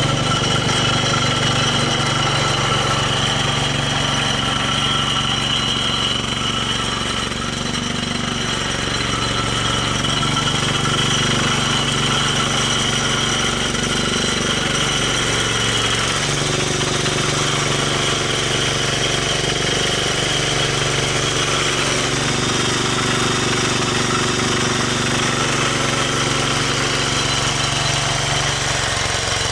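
Engine of a snow-removal machine running steadily under load. Its pitch steps down and back up every few seconds as the load changes, over a steady high whine.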